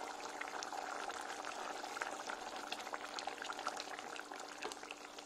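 Thick tomato and lamb sauce bubbling and popping in a pan at a simmer. It has cooked down until thick and is done. A steady low hum runs beneath it.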